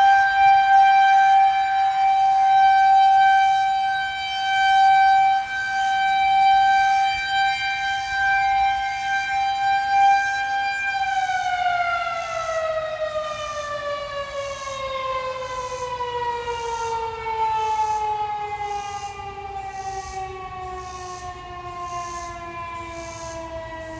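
Federal Signal 2001-130 rotating outdoor warning siren sounding a steady tornado-warning tone, its loudness swelling and fading as it turns. About eleven seconds in it starts winding down, its pitch falling steadily and its sound growing quieter.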